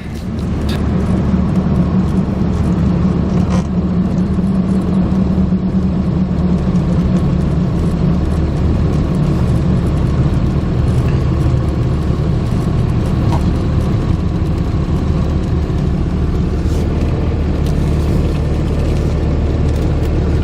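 Old pickup truck on the move, its engine running with a steady low rumble.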